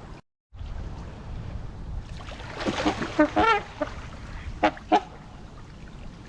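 Waterfowl honking: a cluster of honks about two and a half to three and a half seconds in, then two short honks near five seconds, over steady low background noise.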